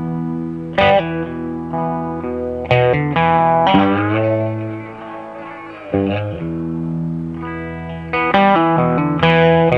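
Music: an electric guitar with effects playing sustained chords, each struck sharply and left to ring, changing every second or so.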